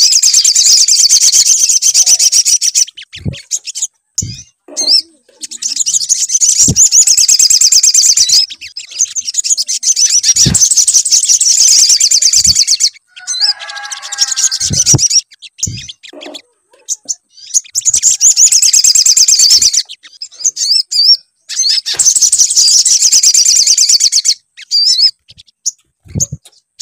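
Recorded song of a sogon, a sunbird: long, high-pitched, rapid trilling phrases a few seconds each, repeated after short pauses, with a few clicks between them. This is a lure (pancingan) track used to provoke a caged sogon into singing.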